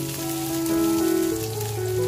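Background music of held notes changing step by step, over the sizzle of sliced shallots, garlic and chilies sautéing in oil in a frying pan.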